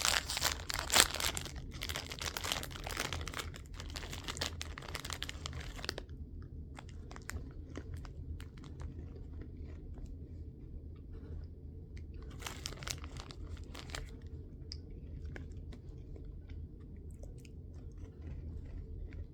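A plastic snack bag of Grandma's mini vanilla cream sandwich cookies crinkling and tearing open for about the first six seconds, then the small cookies being bitten and chewed with quiet crunching. There is another short burst of bag rustling about halfway through.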